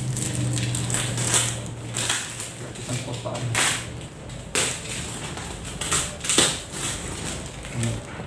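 A cardboard shipping box being opened by hand, its tape pulled off and the yellow packing wrap inside handled. The result is a series of sharp, irregular crackles and knocks.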